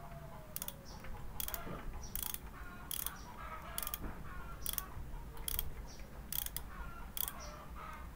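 Sharp metallic clicks from a hand tool worked on the valve adjuster of a Yamaha Mio scooter engine, about one click a second, as the valve clearance is being set after it was found too tight.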